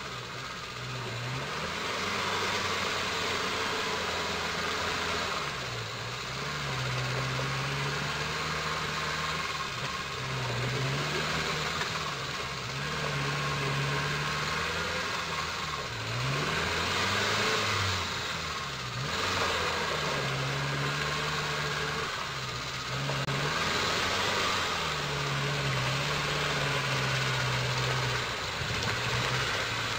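Land Rover Defender 90 diesel engine working under load off-road, its revs rising and falling again and again as the throttle is worked.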